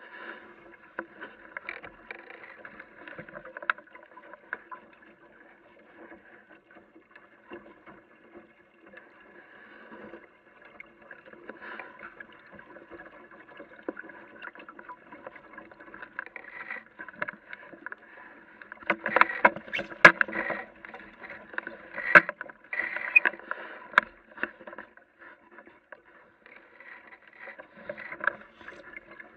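Water splashing and lapping against the hull of a small sailing dinghy under way, with scattered knocks and clicks; it gets louder and busier about two-thirds of the way through.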